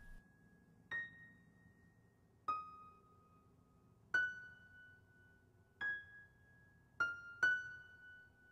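Slow, sparse piano music: six single high notes, played one at a time and each left to ring out, the last two close together.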